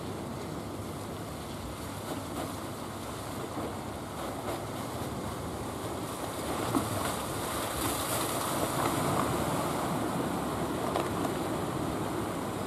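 Sea waves and surf washing steadily, with wind rumbling on the microphone. The hiss of the water grows a little louder about halfway through.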